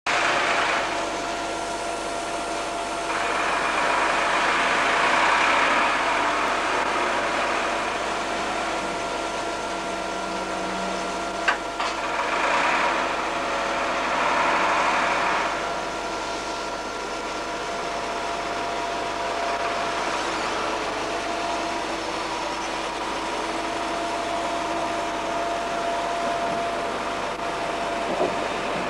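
Passenger coaches of a train hauled by a Class 86 electric locomotive rolling slowly past on departure: a steady electric whine of several held tones under a rushing noise that swells twice, with a single sharp click about eleven seconds in.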